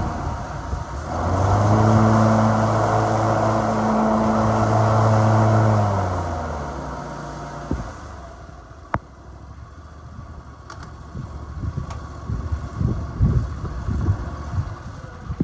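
Zero-turn mower's Briggs and Stratton gasoline engine running. It is throttled up about a second in, holds a steady higher speed, then winds down and stops about two thirds of the way through. A sharp click and scattered low thumps follow.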